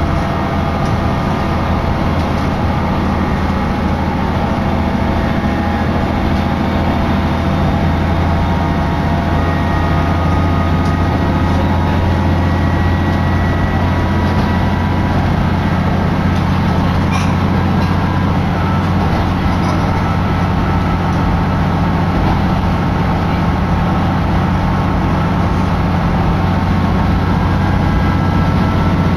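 A diesel railcar running steadily, heard from inside the cabin: a constant low engine drone with a hiss of running noise over it.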